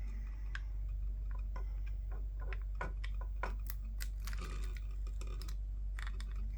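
Irregular small clicks and taps of plastic headset parts being handled and pried apart, over a steady low hum.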